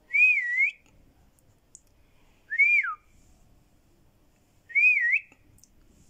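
Three short, clear whistles about two and a half seconds apart. The first and last waver down and back up, and the middle one rises and then drops steeply.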